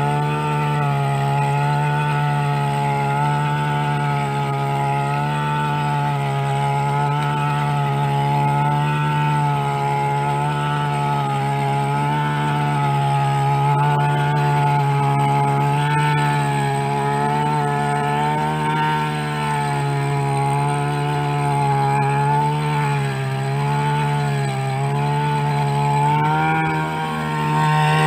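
Backpack brush cutter's small engine running at high speed under load as its shaft head digs a trench in the soil. The pitch wavers up and down.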